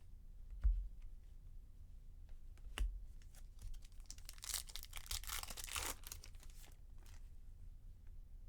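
Trading-card pack wrapper being torn open and crinkled, with the crackling strongest from about four to six seconds in. Two light knocks come before it, about one and three seconds in.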